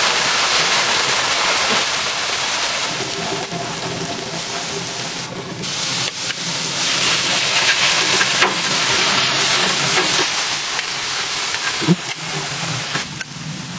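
Beef patties sizzling on a hot flat-top griddle, a steady frying hiss. A few short clicks of metal tongs come through near the end.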